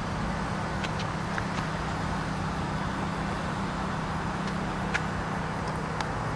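Freight train of double-stack container cars rolling slowly past: a steady rumble of wheels on rail with a low hum and a few faint, sharp clicks.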